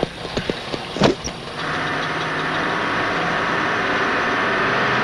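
A few knocks and a van door slamming shut about a second in, then the minibus van's engine runs steadily.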